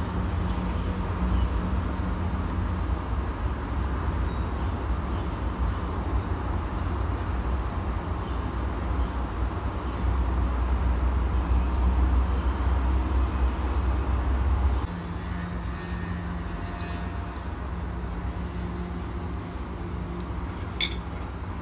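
Steady low background rumble. It grows louder for a few seconds in the middle, then drops off about fifteen seconds in. Near the end comes a single sharp clink of a metal fork against a plate.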